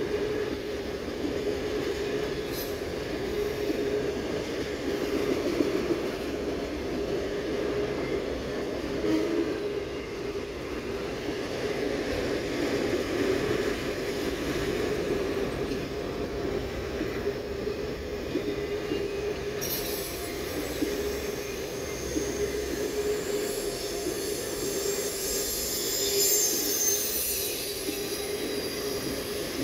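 Freight train of autorack cars rolling past: a steady rumble of steel wheels on rail. From about two-thirds of the way through, a high-pitched wheel squeal rises over the rumble.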